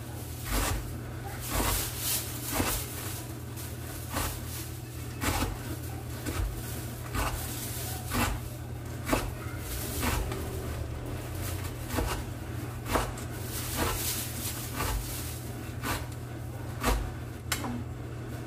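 Kitchen knife chopping fresh kale leaves on a wooden cutting board: single knocks of the blade on the board about once a second, over a steady low hum. The chopping stops near the end.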